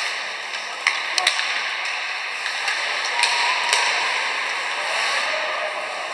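Ice hockey arena crowd noise, a steady wash of voices, with several sharp clacks of sticks and puck: three close together about a second in and two more around three seconds in.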